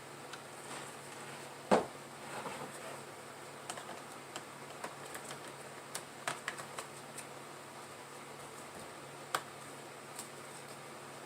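Irregular light clicks and taps from hands working on a laptop, with one sharper click about two seconds in, over a faint steady hum.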